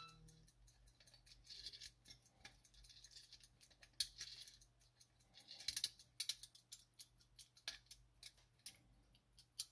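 Faint clicking of the mainspring ratchet as a key winds a Soviet marine wall clock movement: quick irregular runs of small clicks, then single sharper clicks about three a second in the second half.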